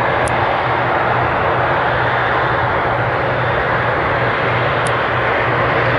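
A Boeing 777 freighter's GE90 turbofan engines running as the aircraft rolls on the runway: a loud, steady jet rush with a low hum beneath. A couple of brief high chirps sound over it, one near the start and one near the end.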